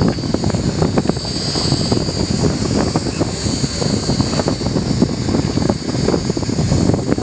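Wind buffeting the microphone as a gusty low rumble, over the steady hum of a fishing boat's engine running.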